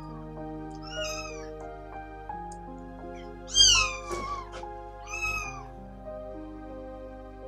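A three-week-old kitten mewing three times, each call rising then falling in pitch, the middle one about halfway through the loudest, over background music.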